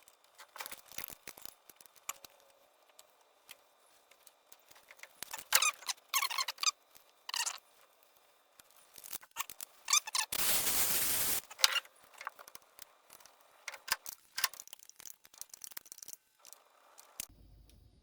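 Hand work on a two-barrel Holley carburetor: scattered squeaks and clicks of parts and tools, with a steady hiss lasting about a second a little past the middle.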